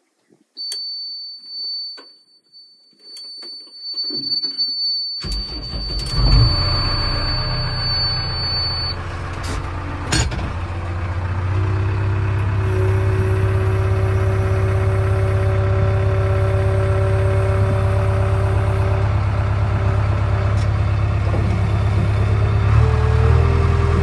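JCB 3DX backhoe loader's diesel engine started with the key. A steady high-pitched warning tone from the dashboard sounds first. The starter cranks about five seconds in, the engine catches and settles into a steady idle, and it rises slightly in pitch near the end.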